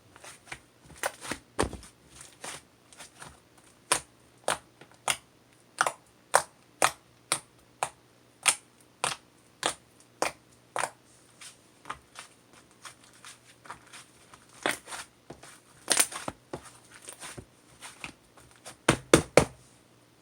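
A series of short, crisp crunching clicks at an uneven pace, roughly one to two a second, with a quick cluster of louder ones near the end.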